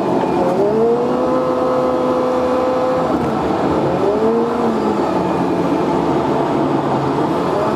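Car engine and road noise heard from inside the car, the engine's pitch rising in short sweeps three times and holding steady in between.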